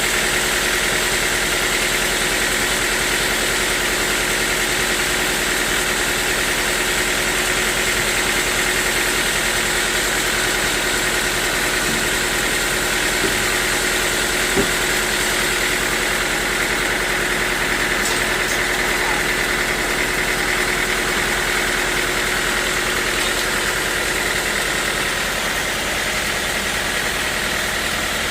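Sawmill machinery running steadily: a constant mechanical drone with a steady whine, and one small knock about halfway through.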